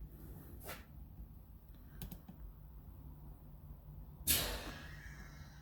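A few light clicks, then a short, louder rustling noise about four seconds in that fades away within half a second.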